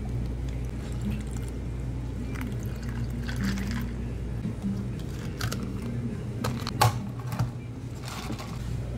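Drink poured from a plastic pouch into a cup of ice, the liquid splashing and trickling over the cubes. One sharp click about two-thirds through.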